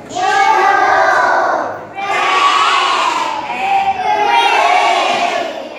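A class of young children shouting out together in chorus: two long drawn-out group calls, the second starting about two seconds in.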